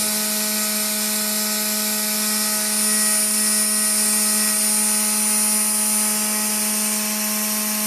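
CNC router running: a steady machine hum with several constant tones and a hiss over it, unchanging throughout.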